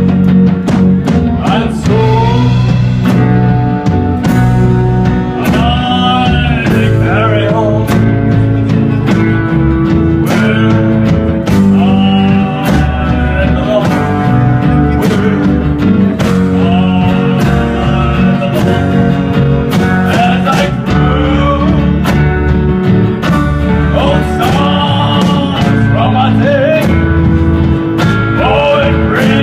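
Live band playing a song: a man singing over electric guitars, bass and a drum kit.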